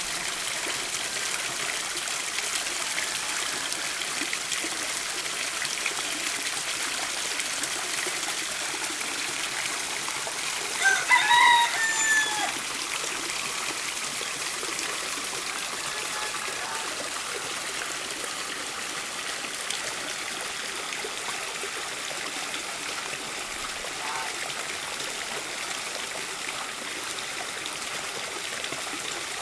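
Water pouring steadily from a PVC pipe outlet into a plant-filled filter tub on the pond surface, splashing and trickling. About eleven seconds in, a bird gives one louder call about a second and a half long that falls in pitch at its end.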